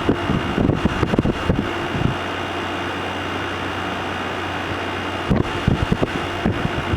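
Midea 5000 BTU window air conditioner running on low cool: a steady fan and compressor hum with a thin high tone, running normally now that a bundle of junk has been cleared from inside it. Irregular low bumps and rustles come through about a second in and again near the end.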